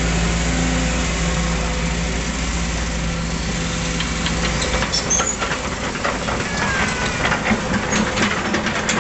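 Sumitomo hydraulic excavator's diesel engine running steadily. From about halfway a quick run of sharp cracks and clicks comes in over it.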